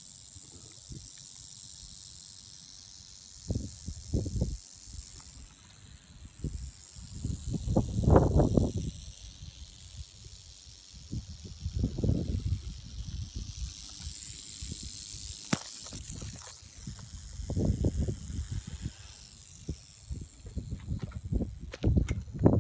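Rattlesnake rattling its tail: a steady, high, dry buzz that weakens near the end, the warning of a disturbed snake. Low thumps and rumbles, the loudest about eight seconds in, come and go under it.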